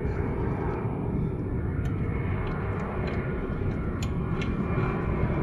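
A steady low background rumble, with a few light, irregular clicks of a hand tool working the sway bar end link nut.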